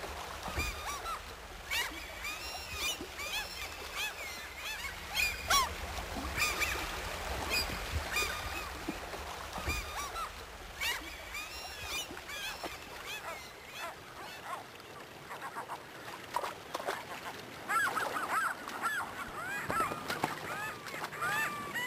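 A flock of water birds calling, many short, overlapping calls one after another, thickest near the end. A low rumble sits under the first part and fades out about two-thirds of the way through.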